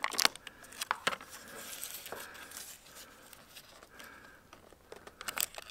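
Light clicks and soft rustling of a small packet being handled and torn open by hand, with a cluster of sharp clicks at the start and again near the end.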